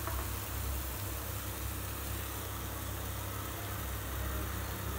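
Onion, green chilli, ginger and garlic paste frying gently in oil in a pan, an even low sizzle over a steady low hum.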